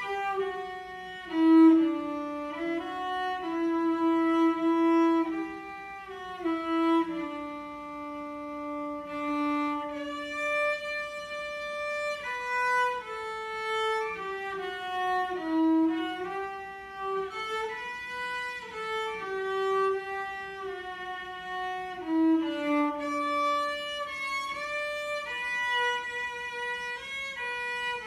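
Solo cello bowed in a slow, lyrical melody, mostly high in its range, with long held notes and smooth slides between some of them.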